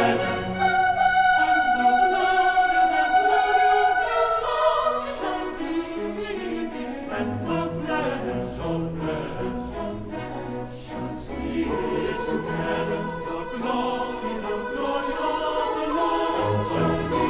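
A choir singing, with long held notes in the first few seconds and more moving lines after, the sung consonants audible at intervals.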